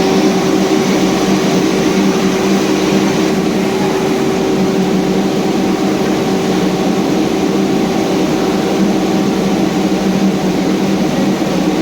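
Sliding panel saw running, a steady machine hum with a constant whine over a rushing noise.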